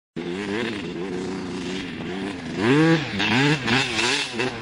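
Dirt bike engine revving up and down, the revs swinging more widely and louder from a little past halfway.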